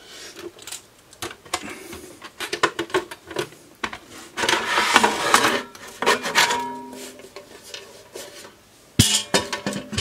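Metal outer casing of an Agilent E3646A bench power supply being slid off its chassis: metal scraping and rubbing with rattles and clanks, a few brief ringing tones in the middle and a sharp knock near the end.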